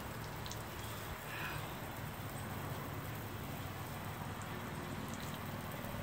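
Steady rush of water spraying from the shower hose of an Eccotemp L5 propane tankless water heater onto wet concrete.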